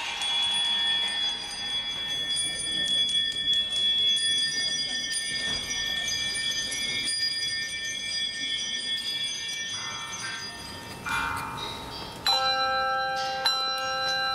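Bells ringing: long, steady high tones fade slowly, then new strokes sound about ten and twelve seconds in, the second loud and bringing in a lower, fuller set of tones.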